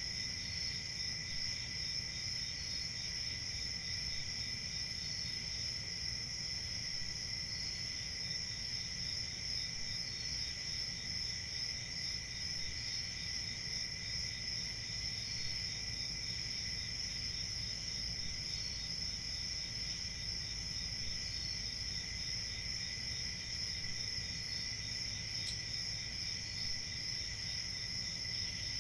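A chorus of crickets chirping steadily, with a fainter, higher chirp repeating every two to three seconds over a low background rumble.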